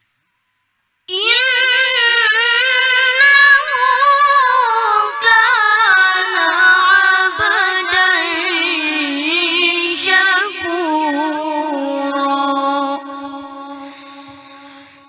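A boy reciting the Quran aloud in the melodic tilawah style: one long phrase full of wavering ornaments begins about a second in, sinks slowly lower in pitch, and fades away near the end.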